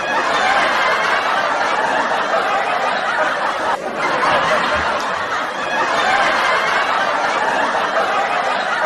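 Laughter from several people at once, a dense unbroken wash of laughing.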